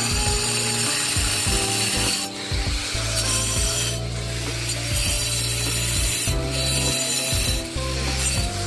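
Natural stone being carved with a tool, a gritty grinding noise in repeated bursts of one to two seconds with short breaks, over background music.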